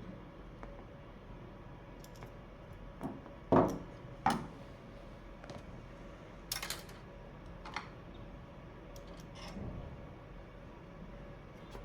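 Scattered clicks and knocks of hardware being handled in a desktop computer case as a hard drive is fitted into its bay, with two louder knocks about three and a half and four seconds in.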